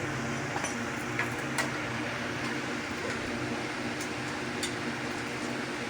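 A steady low machine hum with a few light clicks scattered through it.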